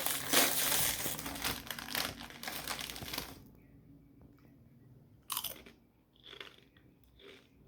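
A person biting into and crunching Doritos Flamin' Hot Limón tortilla chips close to the microphone, loud for about the first three seconds, then quieter chewing with a few brief louder crunches.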